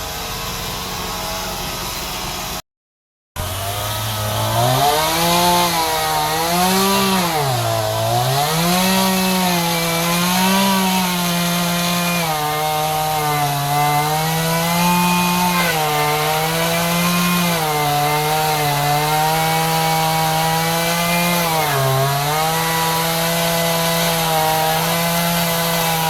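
Gasoline chainsaw running at high revs and cutting wood: its pitch drops as the chain bogs down in the cut and climbs back, over and over. It starts about three seconds in, right after a brief silence.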